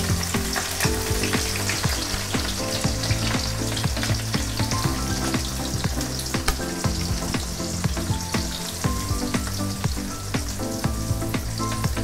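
Thinly sliced onions frying in hot oil in a kadai: a steady sizzle full of small crackling pops.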